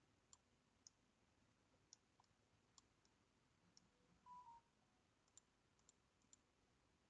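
Near silence with faint, scattered computer mouse clicks, about a dozen at irregular intervals, and a brief faint tone about four seconds in.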